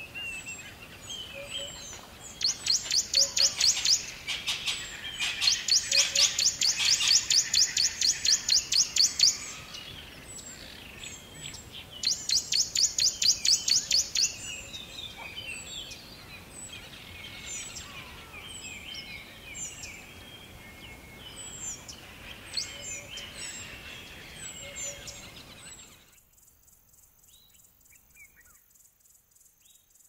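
Small songbirds singing: three loud runs of fast, high, repeated trill notes among softer scattered chirps. About 26 s in the birdsong cuts off suddenly, leaving faint, high cricket chirping.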